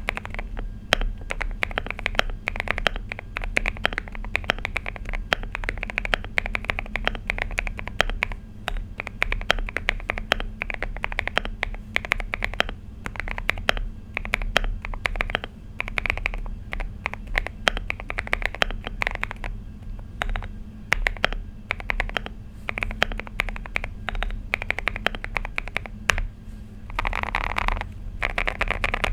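Mechanical keyboard being typed on continuously and quickly, a dense run of key clacks. It is a Finalkey V65 with polycarbonate plate and foam-filled case, fitted with linear switches.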